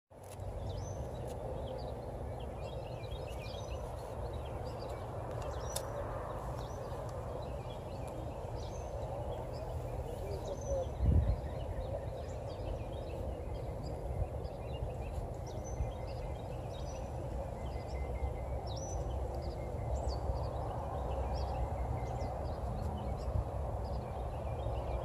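Outdoor ambience: songbirds chirping and calling over a steady low rumble, with one brief thump about eleven seconds in.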